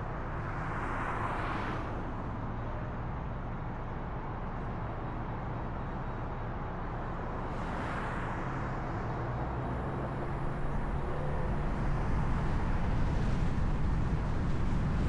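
Car driving on city roads: steady tyre and engine rumble, with two brief swells of hiss about a second in and about eight seconds in, and the noise growing a little louder from about ten seconds on.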